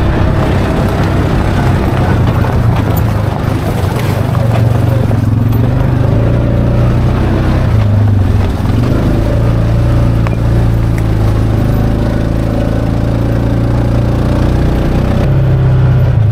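Side-by-side UTV engine running at a steady moderate speed while driving along a rough dirt trail, with a few sharp clicks of stones or brush against the machine.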